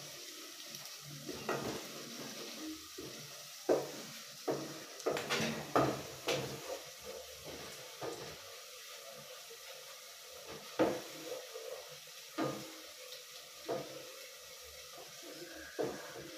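Onions, ginger and garlic sizzling faintly in a cooking pot while a spoon stirs them, giving irregular knocks and scrapes against the pot, most frequent in the first half.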